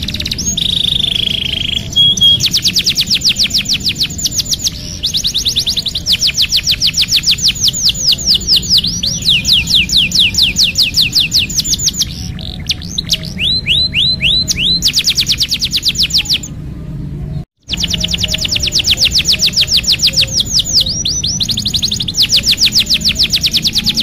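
Domestic canary singing a long song of rapid rolled trills: phrases of fast, repeated high sweeping notes, each held for a few seconds before the bird switches to another. The song breaks off for an instant about two-thirds of the way through.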